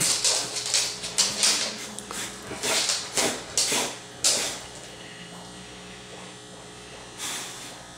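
Kitten hissing from inside a pet carrier at a boxer dog: a string of short, irregular hisses through the first half and one more near the end.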